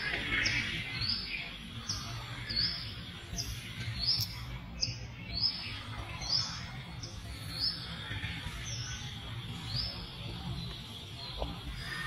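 A bird repeating a short, high chirp roughly once a second, over a steady low rumble.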